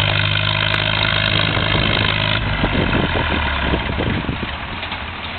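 Tractor engine running steadily, then dropping to a lower, rougher idle about two and a half seconds in.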